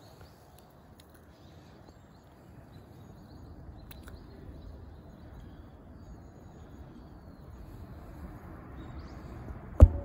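Faint steady outdoor rumble. Near the end, a sharp knock and a brief rustle: handling noise as the smartphone is jolted and swung away.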